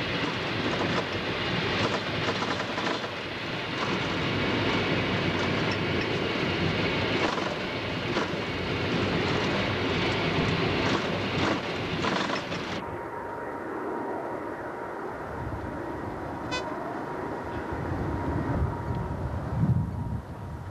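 Tu-22 jet bomber cockpit noise: a loud, dense rush with rapid rattling. About 13 seconds in it changes abruptly to a duller, slightly quieter recording with a faint steady tone.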